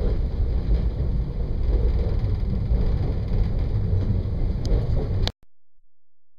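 Regional passenger train running along the track, heard from on board as a steady low rumble with rolling noise. It cuts off abruptly about five seconds in.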